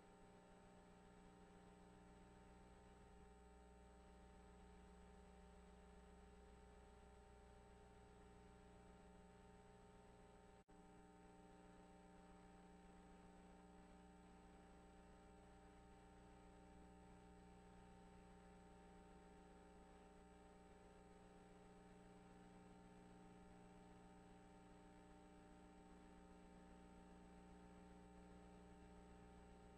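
Near silence: a faint, steady electrical hum made of several held tones, which drops out for an instant about ten seconds in.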